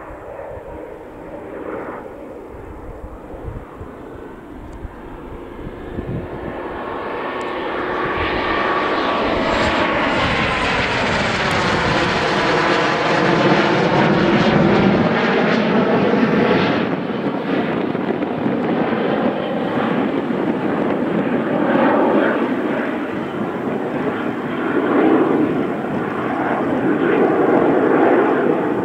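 A pair of BAC Strikemaster jets, each with a Rolls-Royce Viper turbojet, running in a steady jet roar. The roar builds over the first several seconds as they approach. About halfway through they pass overhead and the sound sweeps with a swooping, phasing tone. The roar then stays loud as they fly on.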